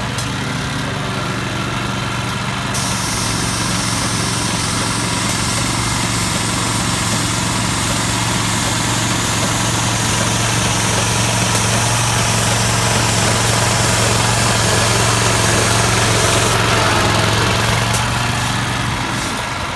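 The small engine on a Graco LineLazer MMA 98:2 walk-behind line striper runs at a steady pitch. From about three seconds in until near the end, a high hiss of the spray guns laying paint sits over it.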